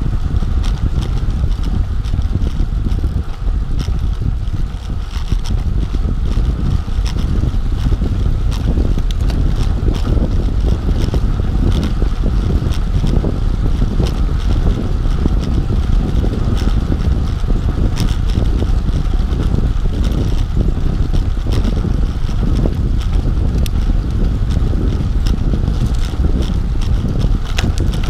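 Wind rushing over the microphone of a bike-mounted camera at road-bike speed, about 17 to 20 mph, mixed with the rumble of road-bike tyres rolling on a concrete path. A few faint ticks come through the steady noise.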